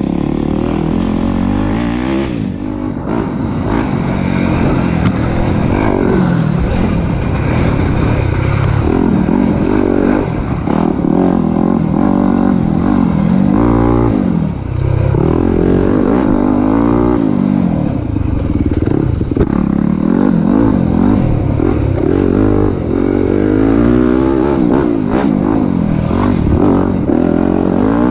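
Dirt bike engine revving hard and easing off again and again, its pitch rising and falling every second or two as the rider accelerates, shifts and brakes through tight woods trail.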